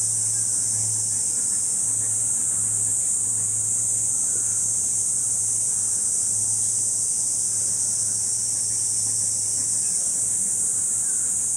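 Cicadas calling in a steady, unbroken high-pitched chorus, with a low steady hum underneath.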